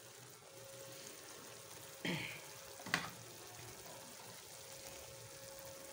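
Onion, garlic and ginger in a little water sizzling faintly in an aluminium pot, with a brief scrape about two seconds in and a sharp tap about a second later.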